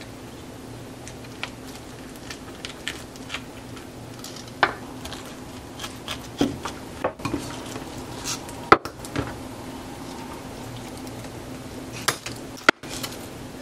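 A knife and then a metal spoon cutting and scraping the flesh out of a halved fresh pineapple on a wooden cutting board. Scattered short scrapes and clicks, with two sharp clicks in the second half, over a low steady hum.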